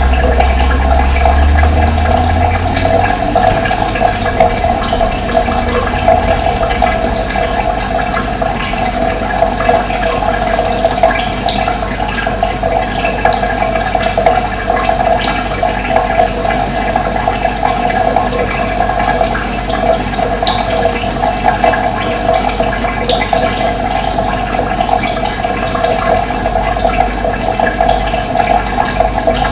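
Running water rushing steadily and without a break, with a low rumble that fades out two to three seconds in.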